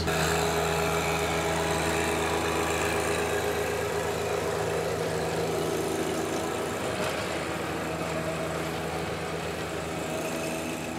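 A John Deere 1025R compact tractor's three-cylinder diesel engine runs steadily, driving a Maschio rotary tiller that churns through garden soil. The sound grows gradually fainter toward the end.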